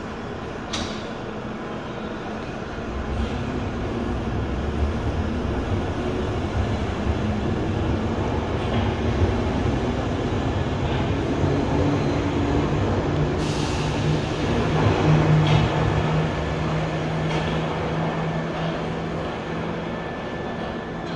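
A London Underground 1973 Tube Stock train pulls out of the platform. A low motor hum and wheel rumble build up as it gathers speed, with a short hiss of air about two-thirds of the way through, then the sound fades as it draws away.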